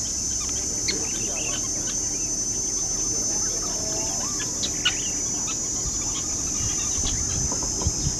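A steady, high-pitched insect drone with scattered short chirps from sociable weavers, a few of them louder about five seconds in and near the end.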